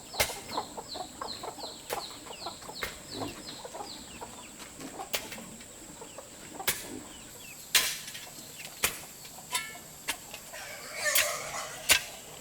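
Chickens peeping and clucking: a quick run of short, high, falling peeps, about four a second, for the first few seconds. Sharp knocks come at intervals, and there is a brief rustle near the end.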